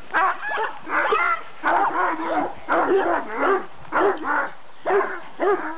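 A dog barking rapidly and continuously, about three short barks a second.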